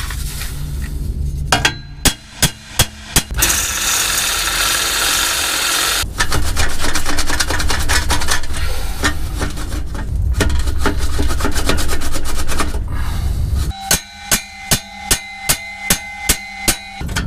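Hammer blows ringing on a steel exhaust pipe, meant to drive a seized mid pipe off its joint where a crush-type clamp has formed it onto the pipe. About five blows come near the start, then a long stretch of metal scraping and rubbing as the pipe is worked in the joint, then a quick, even run of about a dozen blows near the end.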